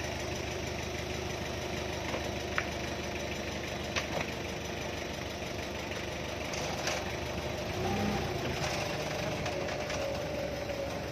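Forklift engine idling with a steady drone, its note rising and changing about eight seconds in, with a few light knocks along the way.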